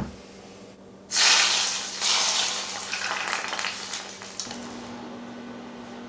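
Kitchen tap turned on, water running into a sink for about three seconds with a loud rushing hiss. It comes after a short knock and eases off near the end, over a low steady hum.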